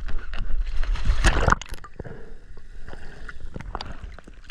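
Water splashing as a diver jumps into the sea from the boat, loudest about a second in, then quieter gurgling and sloshing.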